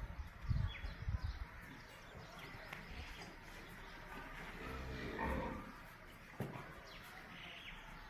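Cattle lowing once, a low drawn-out call about four and a half seconds in, over small birds chirping. A few low thumps sound in the first second and a half.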